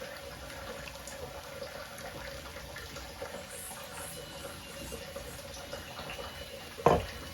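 Faint, steady watery hiss in a kitchen, with one short knock near the end.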